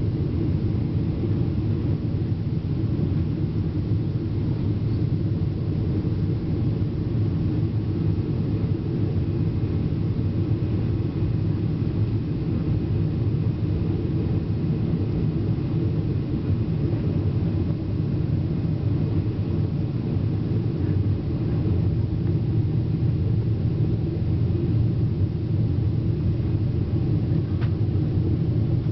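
Steady low rumble inside the cabin of a Boeing 777-200 on final approach: engine and airflow noise.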